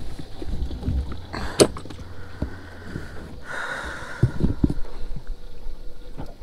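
Close handling noises as a hooked white bass is swung in on the line and gripped by hand: a few sharp knocks and a rustle, then a cluster of low thumps, over a low steady rumble.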